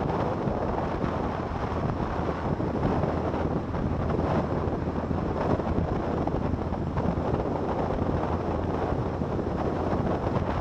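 Steady wind rush on the microphone of a camera on a Harley-Davidson cruising at highway speed, with the motorcycle's engine running low and steady underneath.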